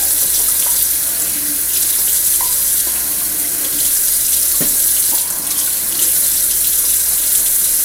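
Kitchen faucet running a steady stream into a stainless steel sink while a small test tube is rinsed and shaken under it. One short knock about halfway through.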